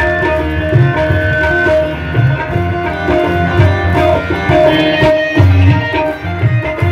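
Live devotional bhajan music: a hand drum beats a steady rhythm under held melodic notes, with the seated crowd clapping along.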